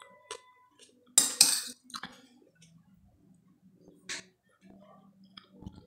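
Metal spoon scraping and clinking against a glass plate as food is scooped up, a few short sharp scrapes with the loudest about a second in, and quiet chewing in between.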